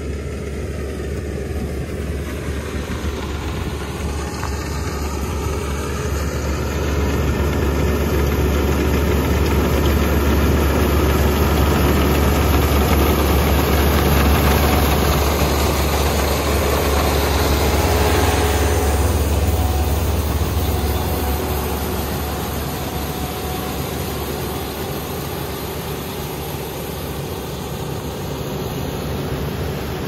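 Kubota combine harvester running steadily as it cuts rice, a deep engine hum under a busy spread of machine noise. It grows louder from about a quarter of the way in, is loudest close beside the cutting header in the middle, and eases off again after.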